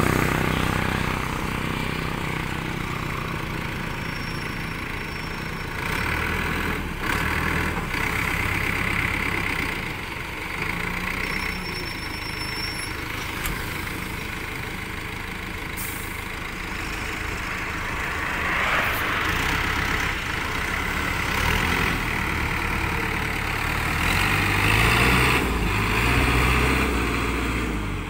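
JCB 3D backhoe loader's diesel engine running, its revs rising and falling several times as it works and drives.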